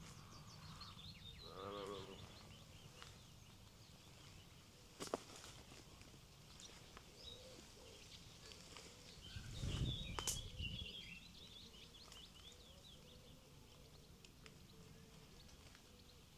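A sheep bleats once, a short wavering call about two seconds in, over faint small birds chirping. A low rumble comes and goes near the middle.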